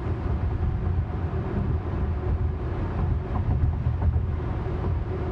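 Steady road and tyre rumble heard from inside a Tesla electric car cruising at highway speed, with no engine note.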